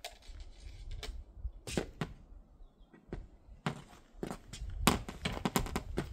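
A series of irregular sharp knocks and clicks, more frequent in the second half, over a low rumble.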